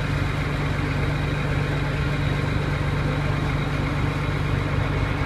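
Passenger boat's engine running steadily under way: a low, even drone.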